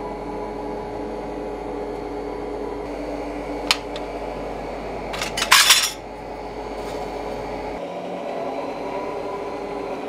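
Steel clinking at a coal forge: a single sharp clink a little before four seconds in, then a short metallic clatter around five and a half seconds, the loudest sound here. A steady mechanical hum with a few held tones runs underneath.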